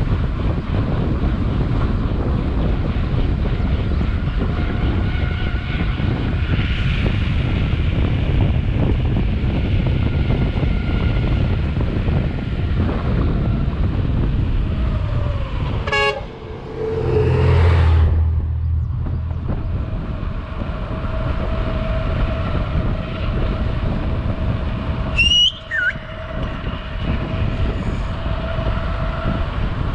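Wind rushing over the camera microphone of a mountain bike coasting downhill on asphalt, a steady noise. About halfway through comes a brief tooting tone and then a louder low rumble, and near the end a short high squeal that drops in pitch.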